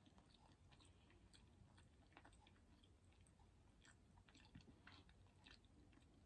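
Near silence with faint chewing: a few soft, scattered mouth clicks of food being chewed with the mouth closed.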